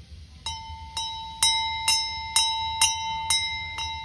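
A brass steam locomotive bell rung by swinging its clapper by hand, striking about twice a second. Each stroke rings on into the next, and the first stroke is softer than the rest.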